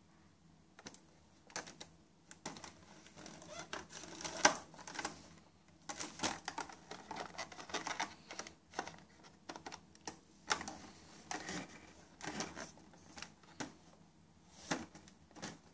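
Clear plastic blister-pack tray clicking and crinkling under fingers as the plastic stamp toys in it are touched and pressed: irregular taps and crackles, starting about a second in.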